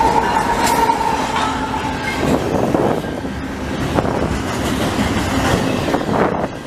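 Double-stack intermodal freight train passing close at speed: a steady high whine as the trailing diesel locomotive goes by fades out about two seconds in, then the loaded stack cars roll past with a continuous rumble and repeated wheel clacks over the rail joints.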